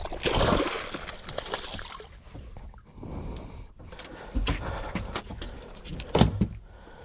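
A hooked tuna splashing as it is hauled out of the sea over the side of the boat, followed by two sharp thuds on the deck as it is landed and handled.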